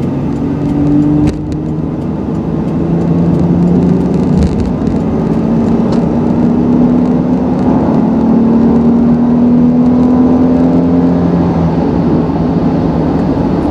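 Honda Ridgeline's V6 engine pulling hard under load while towing a trailer up to highway speed, heard with road noise. There is a shift about a second in, then the engine note climbs slowly in pitch as it revs higher.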